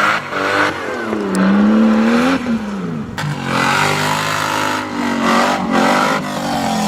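Off-road competition 4x4's engine revving hard, its pitch climbing and dropping several times as the throttle is worked.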